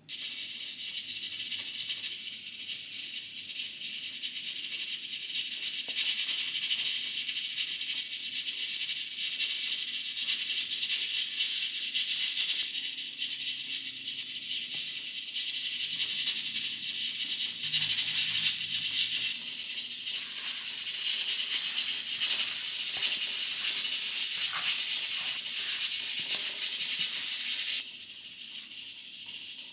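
Food sizzling and crackling in hot oil in a frying pan, a steady hiss that drops quieter near the end.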